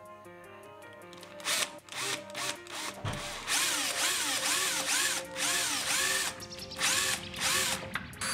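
A drill with a 6 mm twist bit boring a hole into a wooden block. It starts about a second and a half in, and its pitch rises and falls over and over as the drilling speed varies. Background music plays throughout.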